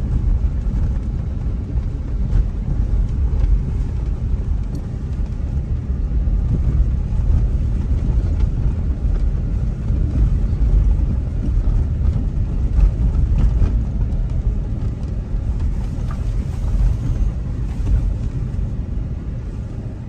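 Low, steady rumble of a car driving on a rough, bumpy road under construction, heard from inside the cabin, its loudness rising and falling with the road surface.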